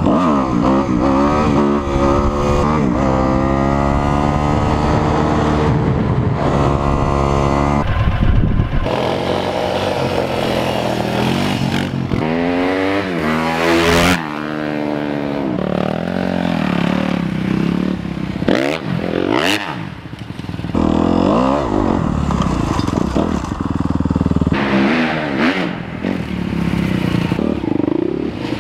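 Dirt bike engine running and revving, its pitch climbing and dropping again and again as the rider accelerates and shifts. About 14 seconds in a vehicle sweeps close past, its pitch falling as it goes by.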